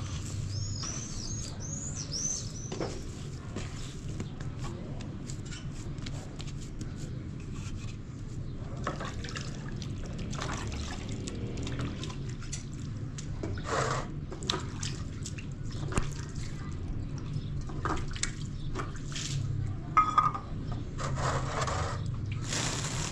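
Hands kneading a large mass of bread dough in a metal basin and wetting themselves in a plastic basin of water, with soft slapping, squelching and splashing strokes. A few high chirps come near the start, over a steady low hum.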